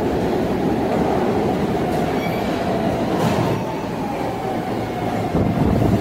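SEPTA Market-Frankford Line subway train pulling into an underground station: a steady rumble of wheels on rail, growing louder near the end as the cars run in past.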